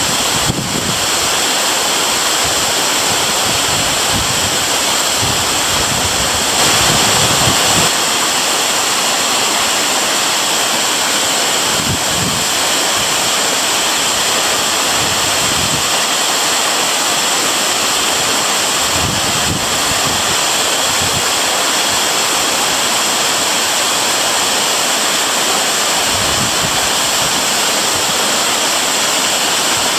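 Waterfall's steady, unbroken roar of falling water.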